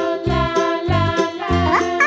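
Upbeat children's background music with a steady beat, about two bass thumps a second, under held jingly tones. Near the end, a cat meow rises over the music.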